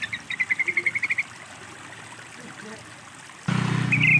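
Yellow-vented bulbul (trucukan) giving a quick chattering call of about a dozen short notes, about ten a second, lasting a little over a second. About three and a half seconds in, a louder steady low hum with the hiss of running water cuts in suddenly, and the bulbul's chatter starts again over it.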